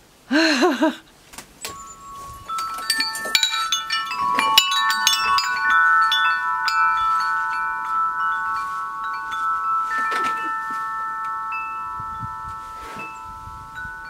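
Wind chime set ringing: a flurry of strikes over a few seconds, then several clear tones that hang on and slowly fade.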